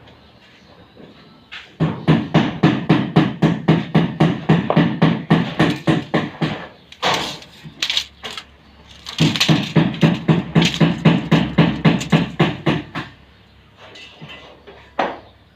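Rapid, even hammering, about four blows a second, in two runs of several seconds with a short pause between.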